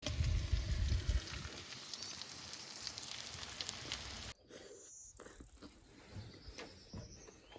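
Turkey bites and vegetables sizzling in butter and oil on a flat-top griddle, a dense crackle with a low rumble in the first second. About four seconds in it cuts to a much quieter stretch with scattered light clicks and a faint rising whistle.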